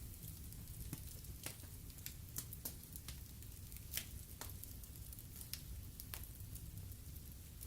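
Fireplace fire crackling: scattered sharp pops over a low steady rumble, with one louder pop about four seconds in.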